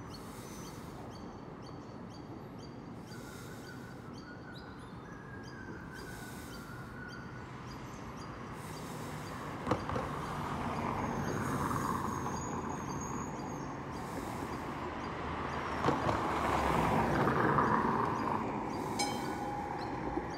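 Melbourne B2-class tram rolling slowly round curved track toward a depot, its rumble growing over the second half. Two sharp knocks come as the wheels cross rail joints or points, and there is a faint high wheel squeal a little past halfway.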